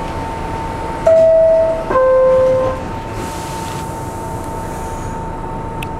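Door-closing chime of an R62A subway car: two held tones, high then lower, about a second in, over a steady high hum. A hiss follows a second or so later, with a click near the end.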